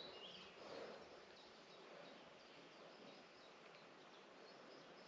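Near silence: faint open-air ambience with a few soft, short bird chirps.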